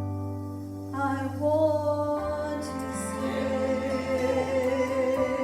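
Gospel song: singing held on long notes over instrumental accompaniment with a deep bass, a new wavering held note coming in about a second in.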